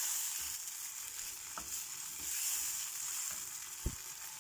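Chopped onions sizzling in oil and a little water in a metal karahi, stirred with a wooden spatula, with a few light knocks of the spatula against the pan, the sharpest near the end.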